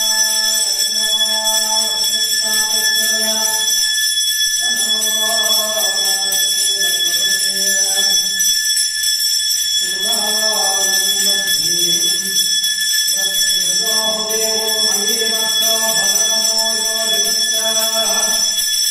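Voices chanting a devotional chant in long held phrases, pausing briefly three times, over a continuous high-pitched bell ringing for the aarati.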